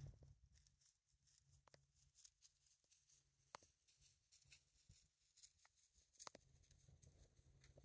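Near silence: faint outdoor ambience with a low hum and a few faint, scattered clicks.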